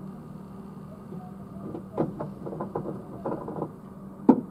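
Steady low hum while fuel is pumped into the car. Light clicks and knocks come in a run about halfway through, then one sharper knock near the end, as the attendant handles the pump beside the car.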